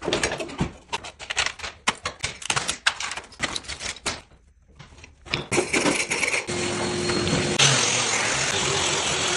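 Loose wooden parquet strips being pried up and scraped off the subfloor, a quick run of sharp clacks and scrapes as the pieces come away. From about five and a half seconds in, a power sander with a dust-extraction hose runs steadily on the bare, glue-covered subfloor.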